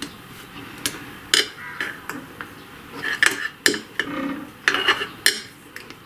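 Clear acrylic rolling pin rolling out a thin sheet of air-dry modelling clay on a hard board, giving a run of irregular sharp clicks and knocks as it is pushed and set down under the hands.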